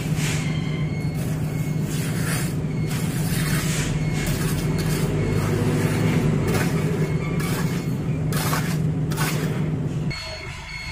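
An engine running steadily at a constant speed, with irregular scraping strokes from wet concrete being worked by hand with a trowel; the engine sound cuts off suddenly near the end.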